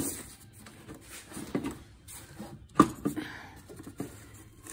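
Rubber air intake duct and its plastic housing being tugged on by hand to pull the duct off the throttle body: a few light knocks and rubbing, the sharpest knock near the middle.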